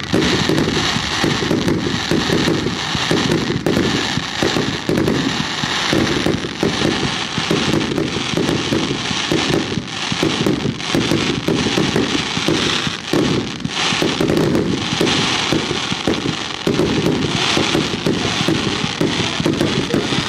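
Aerial fireworks display: a dense, unbroken run of bangs and crackling star bursts.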